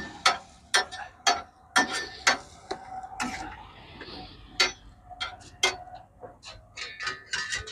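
Steel spatulas tapping on a flat street-food griddle in a steady rhythm of about two ringing metal clicks a second, coming faster near the end.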